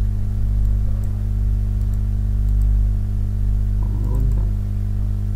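Steady electrical mains hum with a stack of even overtones, with a few faint computer mouse or keyboard clicks over it.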